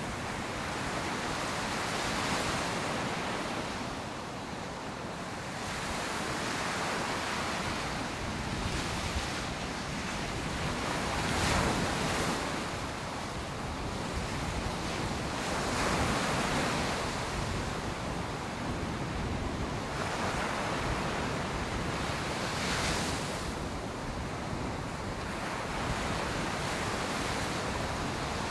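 Ocean surf breaking on a beach: a continuous wash with waves swelling and rushing in every few seconds. Some wind buffets the microphone.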